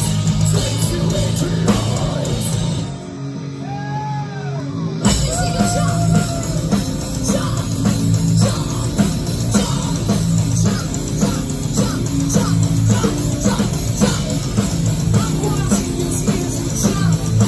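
Metal band playing live through a club PA, with distorted guitars, drum kit and singing. About three seconds in, the low end and drums drop out for a couple of seconds, leaving a thinner passage with a short gliding note, before the full band comes back in about five seconds in.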